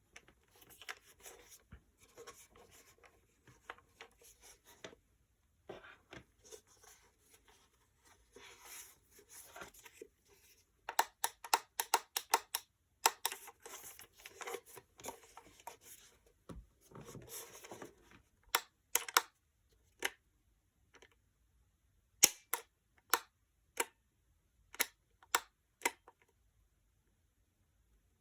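Handling noises: rustling and scraping, then a run of separate sharp clicks, irregular and roughly half a second to a second apart, in the second half.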